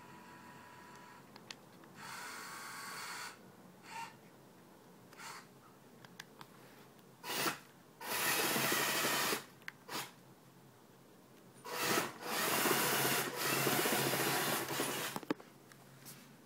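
Small electric gear motors of a homemade tracked PackBot-style robot running in start-stop bursts as it is driven by remote: a burst about two seconds in, a few short spurts, then longer runs of about a second and a half and about three and a half seconds, the second one near the end.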